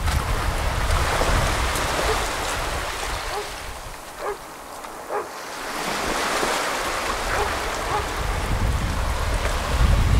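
Small waves breaking and washing up a sandy beach, easing to a quieter lull about halfway through before the next wave comes in. Wind buffets the microphone with a low rumble at the start and again near the end.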